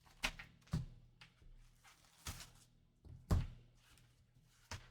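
Cardboard collectible card box being opened and its contents handled: a handful of separate knocks and thunks, the loudest about three seconds in.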